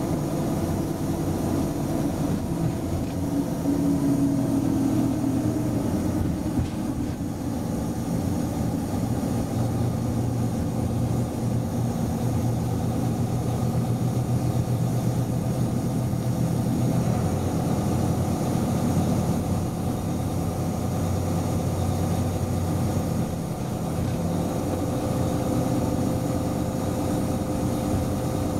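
Diesel locomotive engine running steadily as the locomotive moves slowly along the track, with a low, even hum and rail noise underneath.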